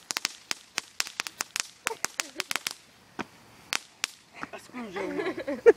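A string of firecrackers going off: a fast, irregular run of sharp cracks that thins out after about three seconds into a couple of last lone pops. Voices come in near the end.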